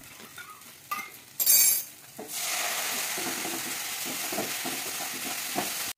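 Cornflour-and-water paste poured into a hot kadhai of sautéed onions, capsicum and sauces: a short loud hiss about a second and a half in as the liquid hits the pan, then a steady sizzle.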